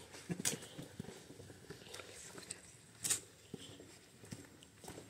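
Footsteps of people walking on a stone-paved alley: irregular soft steps and scuffs, with two louder sharp clicks, about half a second in and about three seconds in.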